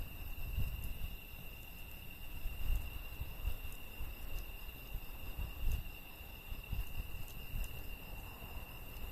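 Crickets trilling steadily at a high pitch over an uneven low rumble, with scattered faint crackles from a wood campfire.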